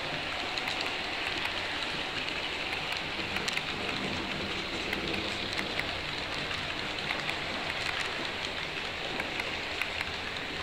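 HO-scale model passenger coaches rolling past on the track: a steady rolling rush of small metal wheels on the rails, with many small irregular clicks from the wheels and couplings.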